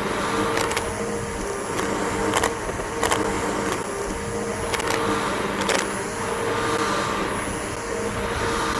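Bissell BigGreen PowerForce upright vacuum cleaner running steadily as it is pushed over grass, its motor giving a constant whine. Sharp clicks come every second or so as lawn debris is sucked up.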